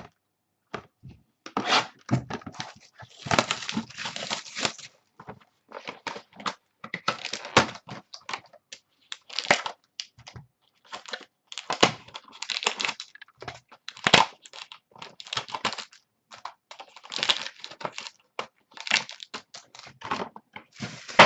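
Plastic wrapping of trading card packaging being torn open and crinkled by hand, in irregular bursts of tearing and rustling throughout.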